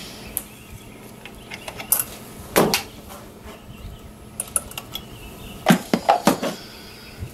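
A handful of sharp metallic clicks and clinks from a wrench and cable fittings, scattered irregularly with a cluster near the end, as control cables are loosened and unhooked in a car's engine bay.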